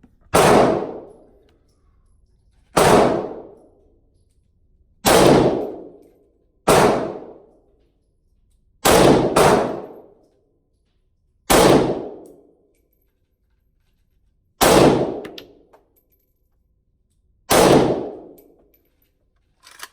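Palmetto State Armory GF3 AK-47 rifle in 7.62x39 firing slow, aimed single shots: nine loud reports about two to three seconds apart, two of them in quick succession about nine seconds in, each with a short echoing tail.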